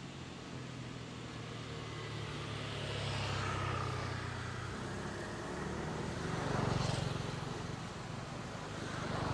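Road vehicles passing: a low engine hum that swells and fades about three times, loudest about seven seconds in and again at the end.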